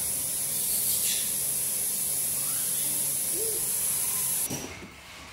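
Steady high-pitched hiss that cuts off suddenly about four and a half seconds in, with faint short squeaks now and then.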